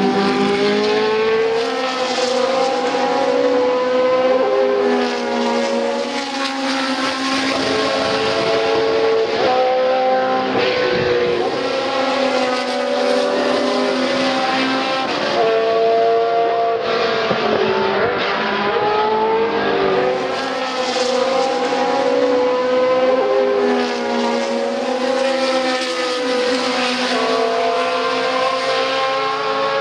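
Several historic Formula 1 cars at racing speed, the March 751's Ford-Cosworth DFV V8 among them, their engine notes overlapping. The pitch climbs as they accelerate through the gears and drops as they brake and change down for the corner, again and again.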